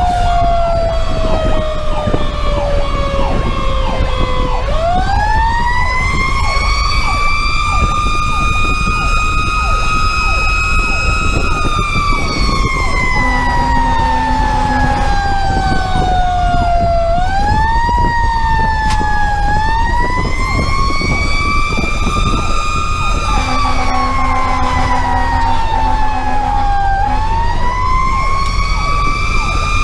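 Fire engine's Federal Q2B mechanical siren heard from inside the cab. It coasts down slowly in pitch, winds back up to a high held wail, and repeats this rise and fall several times. Under it runs the steady low drone of the truck's diesel engine and road noise.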